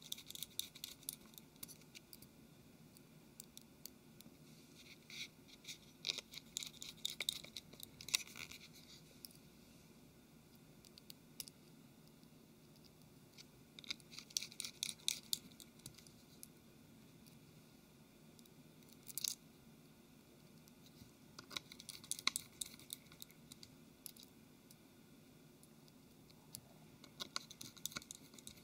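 Small Phillips screwdriver turning tiny screws into a phone's plastic casing: faint bursts of rapid clicking and scratching, one burst per screw, several seconds apart.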